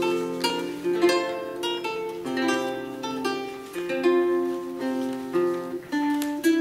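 Solo lute playing: a plucked melody over held bass notes, each note ringing and fading.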